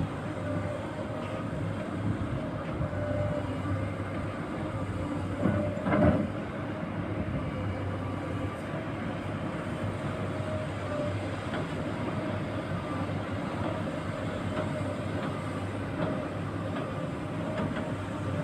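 Excavator's diesel engine running steadily while the machine travels on its tracks, with a clanking rhythm from the tracks. A louder knock about six seconds in.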